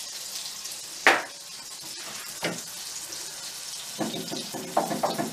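An egg frying in hot oil in a frying pan, sizzling steadily. There is a sharp tap about a second in and a fainter one at about two and a half seconds. From about four seconds a wooden spatula taps and scrapes in the pan.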